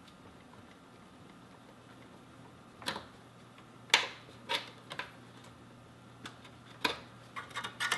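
Irregular light clicks and taps of plastic cable connectors rattling against the drive and metal case as the power and data cables are wiggled loose from a desktop computer's optical drive, starting about three seconds in and coming faster near the end, over a faint steady hum.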